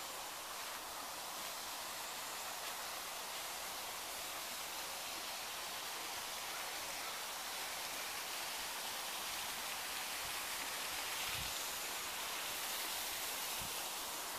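Steady rushing of a small woodland stream and cascade, even throughout, with a few low dull thumps in the last few seconds.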